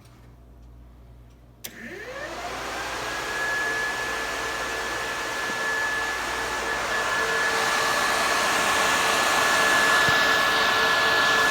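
A pair of 10-inch electric radiator push fans switching on with a click about two seconds in, then spinning up. A rising whine settles into a steady whirring rush of air that keeps getting louder.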